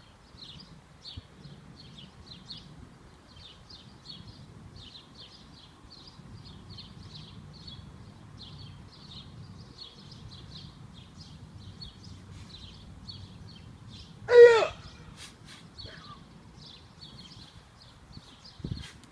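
Continual high chirping over a low steady background rumble; about three-quarters of the way through, one short, loud shout, a karate kiai, breaks in.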